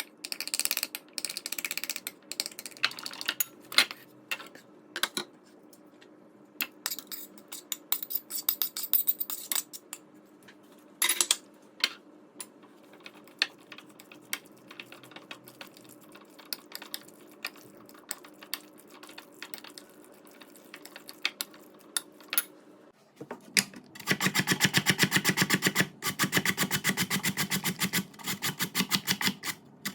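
Kitchen prep sounds: scattered clicks and taps of utensils and dishes over a faint steady hum. About two-thirds of the way through, a run of fast, even strokes starts, then breaks into shorter bursts.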